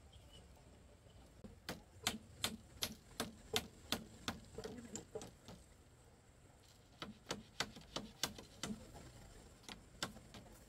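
Rhythmic knocking of a hand tool striking material, about two and a half blows a second, in two runs with a pause of about a second and a half between them.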